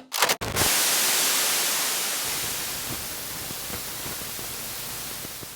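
A steady, static-like hiss of noise across all pitches, coming in after a couple of short bursts. It slowly grows quieter and fades away near the end.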